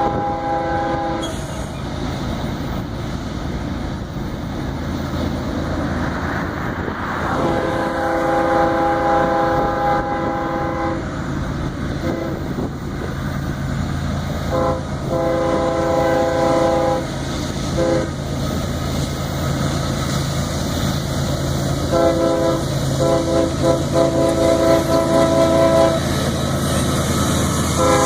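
Nathan K5HL five-chime locomotive air horn blowing a series of blasts: a long one about seven seconds in, a short and a long one around fifteen seconds, then a run of rapid, choppy blasts near the end. Underneath, the diesel engines of two GE ES40DC locomotives rumble, growing louder in the second half.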